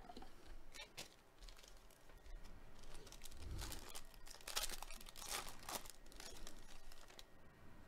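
Faint crinkling and tearing of a 2021 Panini Chronicles Baseball trading-card pack's foil wrapper as it is ripped open by hand, starting about three seconds in.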